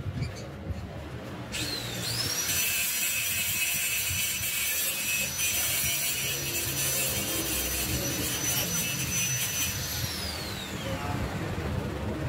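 TIG welding arc on a motorcycle exhaust neck pipe: a steady high-pitched hiss and whine starts about a second and a half in, rising in pitch as the arc strikes. It holds for about eight seconds, then falls in pitch and fades near the end.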